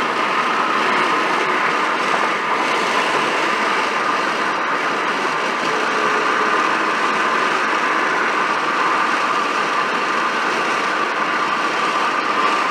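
Steady road noise of a vehicle driving at a constant speed, with a faint steady hum.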